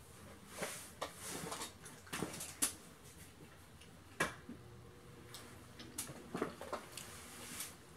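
Scattered knocks and rustling of a person moving about, then a sharp click about four seconds in as an electric fan is switched on, after which its faint steady hum runs under a few more light clicks.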